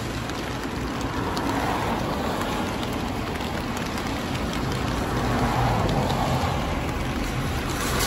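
Typhoon rain and wind: a steady wet hiss that swells about two seconds in and again around five to six seconds in.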